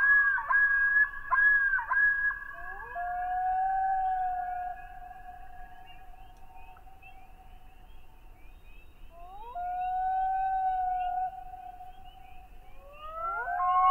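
Common loons wailing: several long, overlapping calls at different pitches, each sliding up into a held note. They fade about halfway through, a single call comes in about two-thirds of the way through, and several start again near the end, over faint, rapid, high chirping.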